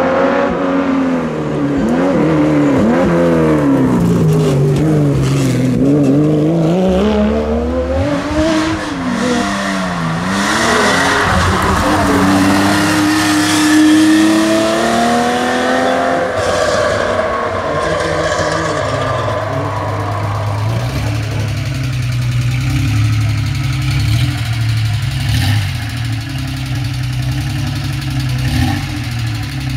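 Air-cooled Porsche 911 flat-six engines revving hard, the pitch climbing and dropping again and again through gear changes. In the last third the engine settles into a steadier low rumble with small blips of throttle.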